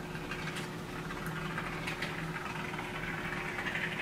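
Can of expanding spray foam hissing and sputtering as foam is squirted into gaps, with a few sharp clicks early on and the hiss growing louder near the end.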